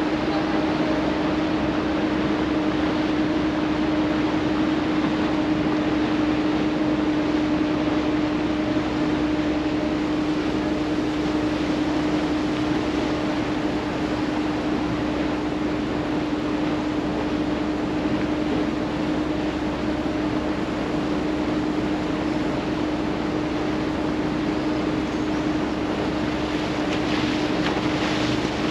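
Water taxi's engine running steadily as the boat cruises, a constant drone under the rush of wind and water passing the hull.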